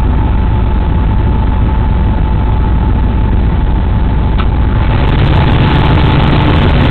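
Steady loud rumble of a locomotive running at about 45 km/h, heard inside the driver's cab, with a faint steady tone. It grows a little louder about five seconds in.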